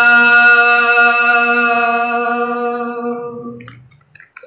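Unaccompanied male singing voice holding one long, steady note at the end of a line of Gojri bait, fading out about three and a half seconds in, followed by a few faint clicks.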